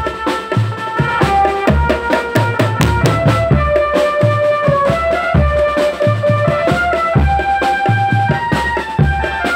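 Drum band playing a steady rhythm: deep bass drum hits under quick strokes on a tenor drum set, with a melody of held notes changing pitch on top.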